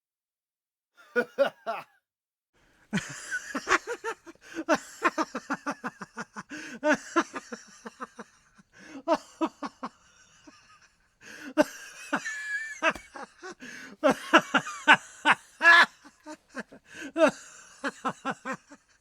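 Laughter: several fits of quick, rhythmic ha-ha pulses, about five or six a second, with short breaks between the fits.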